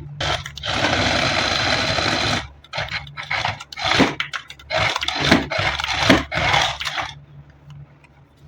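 Packaging being handled and scraped: a stretch of about two seconds of continuous rubbing, then a run of short irregular scrapes and rustles that stop near the end, over a faint low hum.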